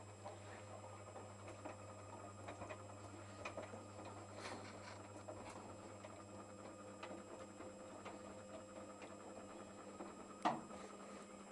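1970 Candy Superautomatic 98 washing machine in its main wash: a faint steady hum with light, irregular clicking and patter from the drum. There is one sharp click near the end.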